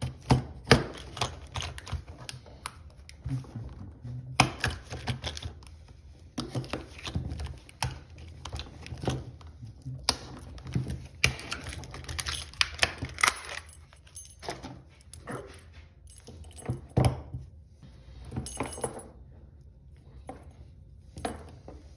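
A brass padlock and its keys being handled: irregular small metal clicks, knocks and jingles of keys.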